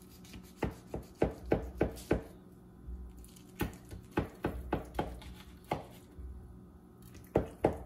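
A blade cutting through a baked lasagna in a disposable aluminium foil pan, giving a series of short sharp knocks and taps as it strikes the bottom and edges of the pan. The taps come in three bursts with short pauses between.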